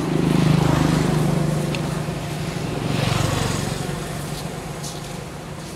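A motor vehicle's engine passing by: a low hum that swells louder just after the start and again around three seconds in, then fades away.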